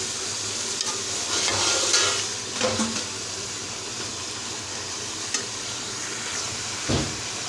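Chicken pieces frying and sizzling in masala in an aluminium pot while a steel slotted spatula stirs and scrapes through them: the bhuna stage of cooking chicken karahi. A few louder scrapes come in the first three seconds, and a knock of the spatula on the pot comes near the end.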